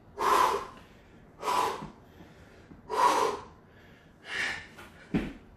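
A man breathing hard from burpee exertion: four heavy breaths about a second and a half apart, then a short dull thump near the end as he drops onto the rubber floor mat.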